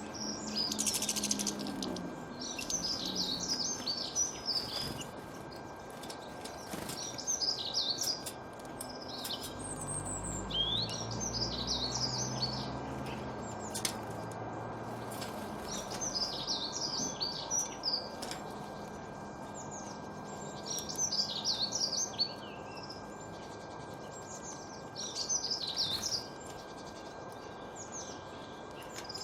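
A songbird singing short, fast warbled phrases, about six of them, roughly every four seconds, over a steady outdoor hiss. A faint low rumble rises and fades around the middle.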